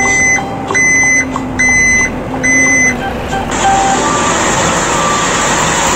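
A reversing alarm beeping four times, about one beep a second, each a short steady electronic tone, then a steady rushing noise.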